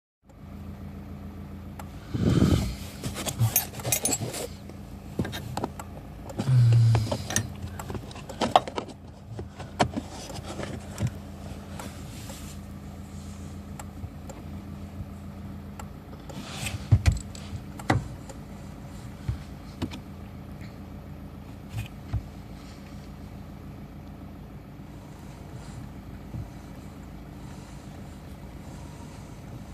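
A vehicle engine running steadily, with scattered knocks and clicks over it, the loudest a couple of seconds in, around seven seconds in and again around seventeen seconds in.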